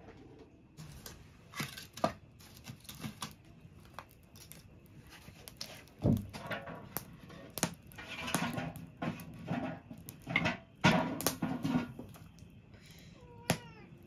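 Irregular knocks, clicks and clatter of kitchen utensils and cookware being handled, with several sharper clacks in the middle.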